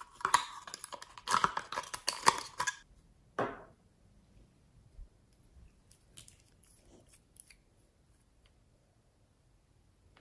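Crackling, clicking handling noise for about three seconds as a nail polish bottle's cap is worked loose, then a short squeak falling in pitch. A few faint clicks follow.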